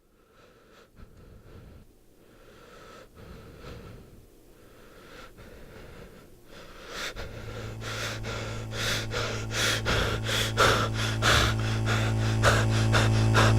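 A sound-design build that gets steadily louder. Faint breath-like sounds and scattered clicks come first. About seven seconds in, a steady low electrical-sounding hum starts, with fast crackling clicks that thicken into a noisy wall of sound.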